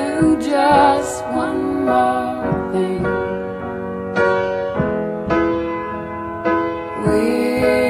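Solo piano playing slow, sparse chords, each struck note ringing out and fading, in a gap between the sung lines of a piano ballad.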